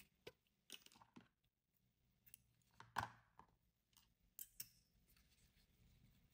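Faint handling sounds of a satin ribbon bow and its sewing thread: light rustles and scattered clicks, with a sharp snip about three seconds in as the thread is cut with small scissors.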